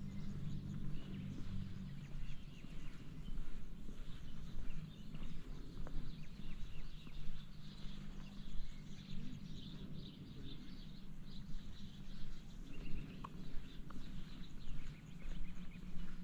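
Outdoor ambience: scattered short bird chirps over a low, unevenly fluctuating rumble.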